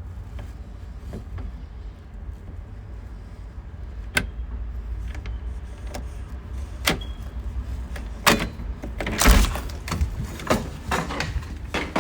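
Metal clicks and rattles of a door lock being worked open by hand, a few separate clicks at first, then a denser run of clicks and rattles in the last few seconds as the door comes open. A steady low rumble sits underneath.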